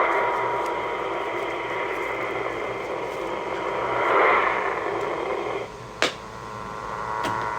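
CB radio receiver hissing with no voice on the channel, a narrow, tinny static that cuts off abruptly about five and a half seconds in, followed by a sharp click.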